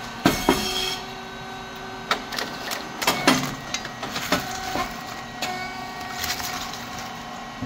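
Rice cake popping machine (SYP5310T) running, a steady motor hum under a series of sharp clacks and pops as its heated moulds press and release the rice chips, loudest about a quarter second in and again about three seconds in.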